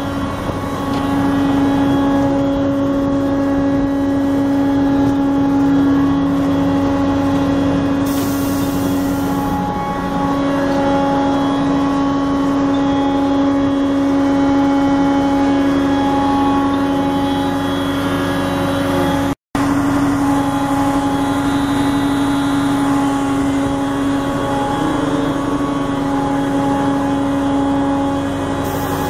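Caterpillar V8 diesel engine of a CMI PR-500FL asphalt milling machine running steadily with a constant pitched drone. There is a brief hiss about eight seconds in, and the sound cuts out for an instant about two-thirds of the way through.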